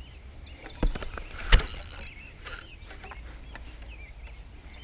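A few sharp knocks: one about a second in and a louder one just after, then a weaker one, over faint outdoor ambience with high chirps.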